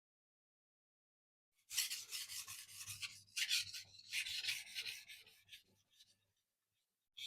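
Steel knife blade stroked rapidly back and forth across a wet sharpening stone, a gritty scraping that starts about two seconds in and dies away about four seconds later.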